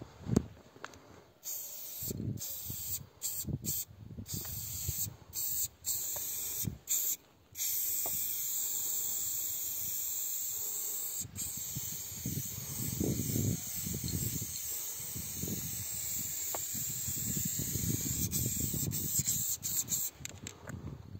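Aerosol spray-paint can hissing as paint goes onto a wall: several short bursts at first, then one long, steady spray for most of the rest.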